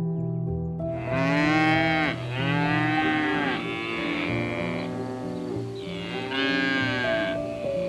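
Several long, moo-like lowing calls from hoofed herd animals, each rising then falling in pitch, starting about a second in, over soft background music.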